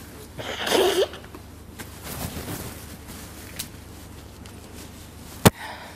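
A man weeping into a handkerchief: a breathy, sniffling sob about a second in, then fainter sniffles, and a sharp click near the end.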